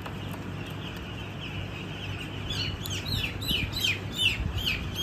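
A flock of eight-day-old broiler chicks peeping. From about halfway in, the peeps grow louder and come fast: quick falling cheeps, several a second.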